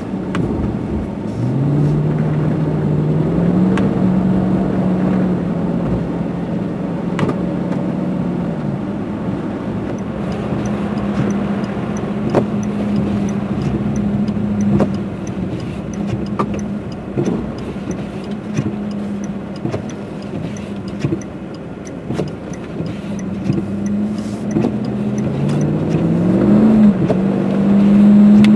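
Chevy Silverado pickup's engine heard from inside the cab while driving through deep snow: the engine note climbs as it accelerates about a second and a half in, holds steady, then climbs again near the end. Occasional knocks and, in the middle, a faint ticking about twice a second.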